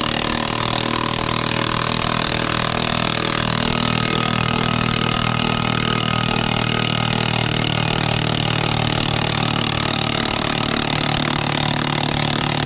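An engine running steadily at a constant speed, with a continuous even hum that starts abruptly and does not rise or fall.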